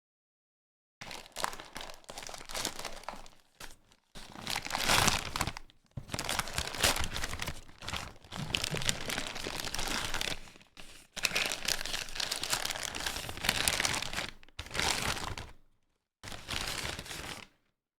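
Packaging of an Elgato Stream Deck XL being handled and opened: crinkling and rustling, with some tearing. It comes in uneven bursts broken by short silent gaps.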